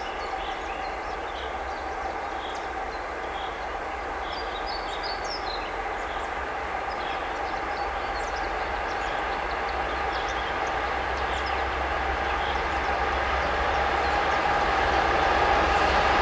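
An EP2K electric locomotive hauling a passenger train approaches and passes, its steady running noise and hum growing louder throughout as the coaches come close.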